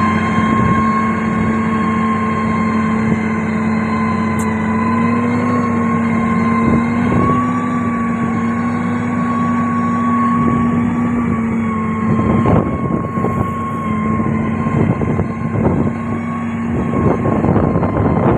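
Heavy diesel road-construction machine running steadily, its drone rising slightly in pitch midway. In the last several seconds, irregular knocks and rattles join in.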